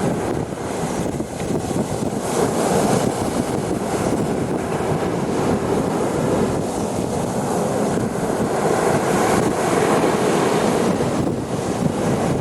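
Sea waves washing onto the beach, a steady surf noise that swells and eases every few seconds, with wind buffeting the microphone.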